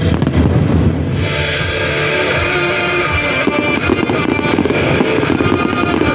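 Fireworks bursting and crackling over loud music, the crackle growing denser about halfway through.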